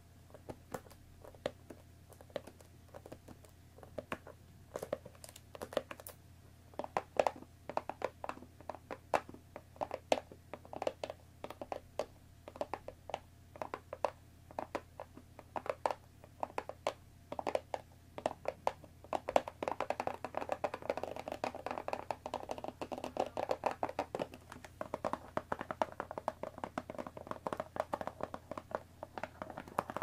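Long fingernails tapping on a cardboard tea box, many quick sharp taps. From about twenty seconds in, the sound turns to a denser scratching and rubbing of fingers over the box.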